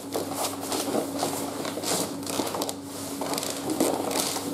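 Nylon sleeping bag liner, pillow and self-inflating mattress rustling and scraping in uneven bursts as a man's weight shifts onto a low camping cot and he lies down on it.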